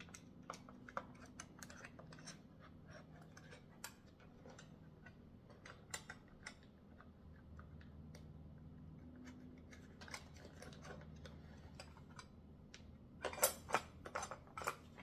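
Small metal clicks and ticks of little screws and a hex wrench being handled and worked as the screws are started into a bike repair stand's tool tray, with a short burst of louder clatter about 13 seconds in. A faint steady hum sits underneath.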